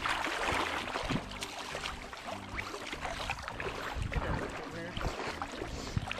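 River water splashing and sloshing around a landing net as a hooked fish is worked close in, with a louder low rumble of disturbed water or handling about four seconds in.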